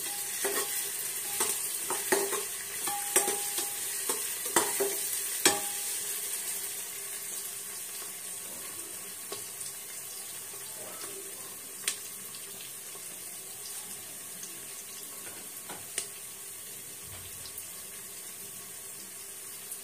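Chopped onions with crushed ginger and garlic sizzling in oil in a pressure cooker. A steel spoon scrapes and knocks against the pot for the first several seconds. After that the frying goes on as a steady sizzle, with a couple of single clicks.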